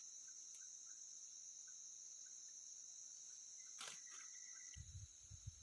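Faint, steady high-pitched chorus of insects, with one sharp click about four seconds in and a low rumble of wind or handling on the microphone near the end.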